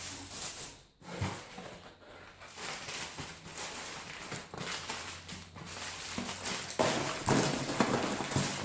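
Rustling and crackling of packing material as parts are unwrapped and handled, with light knocks; it grows louder and busier near the end.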